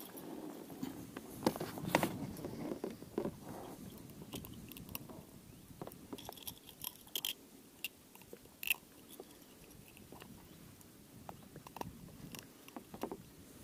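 Soft, scattered clicks and rustles of hands unhooking a spinner lure from a small pike's jaw, with a few sharper clicks standing out.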